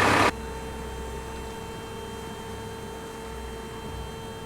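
Supercharged Ford Coyote 5.0 V8 idling, cut off abruptly a fraction of a second in, leaving a steady hum with a constant mid-pitched tone.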